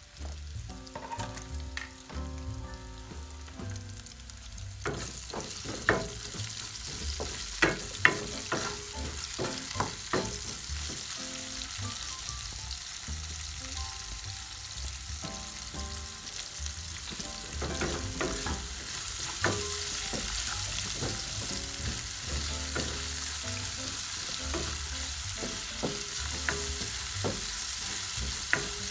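Sliced red onions sizzling in hot oil in a nonstick frying pan, stirred with a wooden spoon that clicks and scrapes against the pan. The sizzle grows louder about five seconds in.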